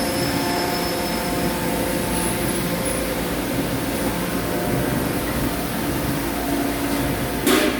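CNC machining equipment running: a steady mechanical hum with several steady whining tones, and a brief loud hiss just before the end.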